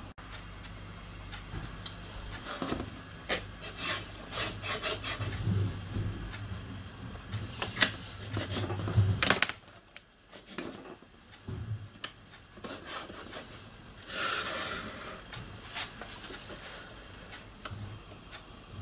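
Metal tailstock of a small hand-built lathe being adjusted and slid along the bed's slideways on its newly fitted gibs: scraping and rubbing of metal on metal, with a run of clicks and knocks that is loudest about eight and nine seconds in, then a short scrape after a lull.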